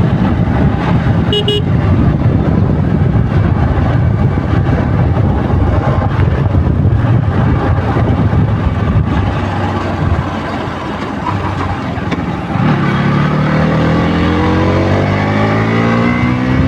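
KTM RC 200's single-cylinder engine running through its stock exhaust under way. It eases off around ten seconds in, then the revs climb steadily near the end as the bike accelerates. A short horn beep sounds about a second and a half in.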